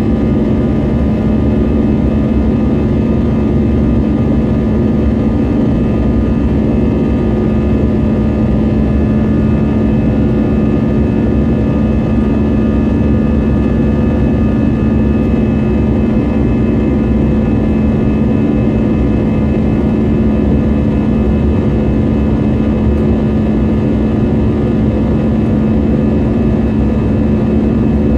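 Airliner's turbofan jet engines at climb power after takeoff, heard inside the cabin: a steady low rumble with a constant hum and several fainter steady higher tones.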